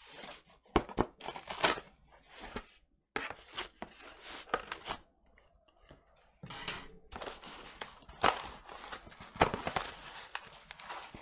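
Scissors snipping through a cardboard record mailer and the cardboard being ripped open, a run of crackling cuts and tears with a short pause a little past halfway.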